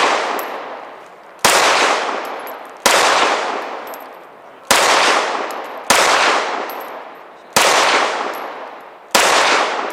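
Six single shots from a 9mm Glock 34 pistol, fired about one to two seconds apart during an IPSC stage. Each loud crack trails off in a long echoing tail.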